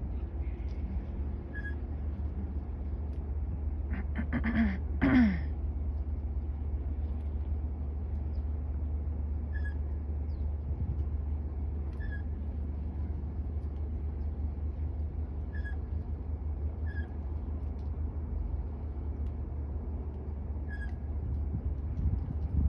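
Blue jay making an unusual low call: two loud pitched notes falling in pitch about four to five seconds in. Short faint high chirps recur every few seconds over a steady low rumble.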